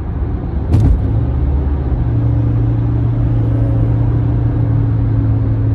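Low rumble inside a car's cabin, with a short knock just before a second in, after which a steady low hum sets in and holds.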